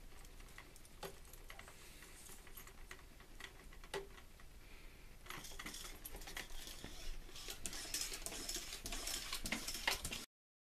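Faint clicks, taps and rustling from handling the flood bung's hose and fittings in a toilet pan. A few separate clicks at first, then from about halfway a busier run of clicks and rustle that cuts off suddenly near the end.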